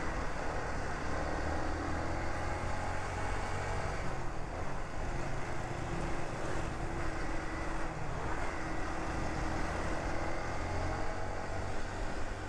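Motorcycle engine running at a steady cruising speed, heard from the rider's seat, under a steady rush of wind and road noise.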